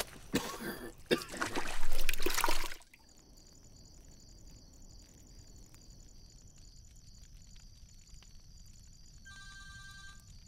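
Water splashing in a metal bowl for about three seconds, then a quiet stretch with faint small clicks. Near the end an electronic phone ringtone begins, a chord of steady beeping tones.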